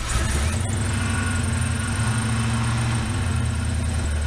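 Swapped-in LS V8 in a 1967 Chevrolet C10 idling steadily under the open hood.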